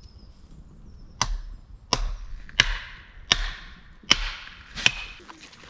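Axe chopping deadwood on a chopping block: six sharp strikes about two-thirds of a second apart, starting about a second in, each with a short crack of splitting wood.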